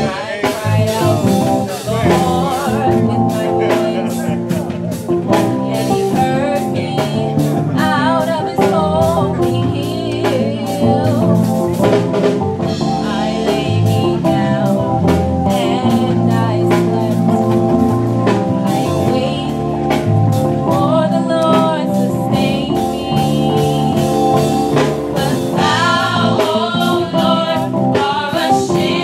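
A group of singers performing a song together with a live band of electric guitar and drum kit, amplified through microphones.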